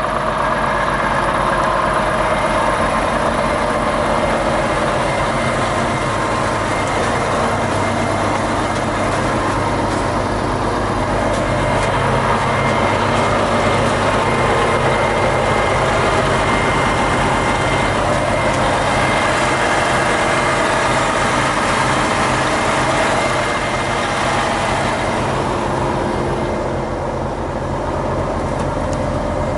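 Volvo FH540's 13-litre straight-six diesel engine idling steadily. It sounds duller near the end, heard from inside the cab.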